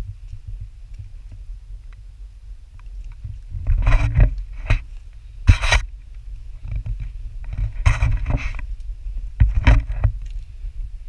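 Low wind rumble on a handheld action camera's microphone, with about five short scuffs and rustles as a hiker walks and scrambles over rocky ground, the sharpest a little after the middle.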